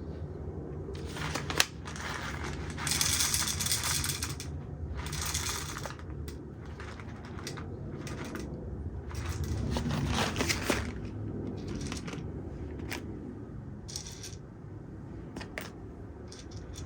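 SHARDOR CG837B electric coffee grinder with 40 mm flat burrs grinding espresso beans at its finest setting: a steady motor hum under irregular crunching and crackling as the beans are crushed, heavier in spells.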